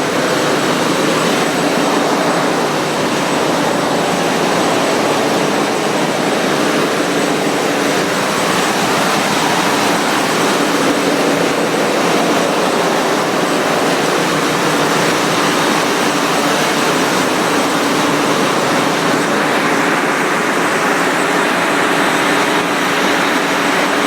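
Loud, steady machinery roar of a bulk carrier's engine room, an even noise with a few steady hums in it and no change throughout.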